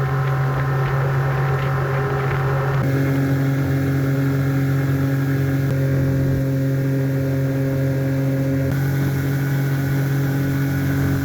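Boat motor running steadily under way, a constant engine drone with its pitch pattern shifting abruptly about three seconds in and again near nine seconds.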